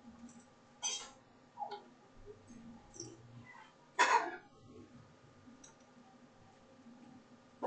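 A few short, sharp noises scattered over a faint steady hum, the loudest about four seconds in.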